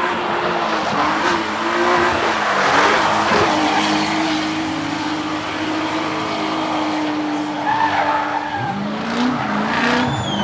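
Race car engine at high revs with tyres squealing and skidding through a drift. The engine note holds steady for several seconds, then swings up and down near the end.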